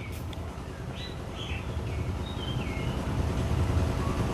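A low steady rumble of outdoor background noise, growing louder toward the end, with a bird chirping a few short falling notes.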